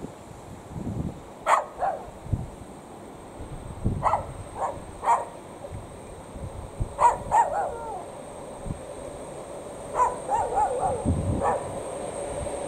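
A dog barking in short groups of barks a few seconds apart, over wind rumble on the microphone. Near the end the steady hum of an approaching Class 150 diesel multiple unit grows beneath the barks.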